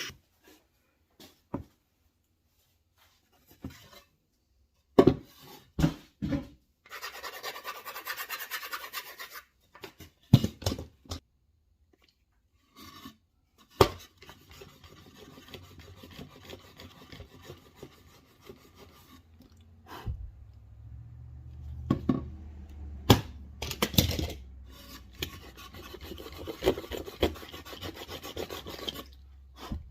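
Hand work on wood: scattered knocks and clatter of tools and wood being handled, with stretches of rubbing or rasping on wood.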